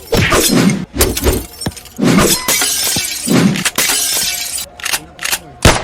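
A series of loud crashes with glass shattering and breaking, several with a heavy thud underneath and a sharp knock near the end.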